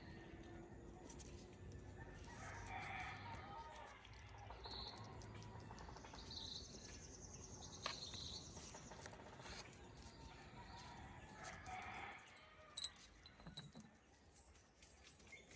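A rooster crowing twice, faint, about 3 and 12 seconds in, with small birds chirping in between.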